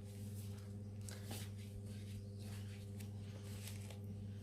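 Soft rustling of paper and sticker sheets being handled, a few light scrapes scattered through, over a steady low electrical hum.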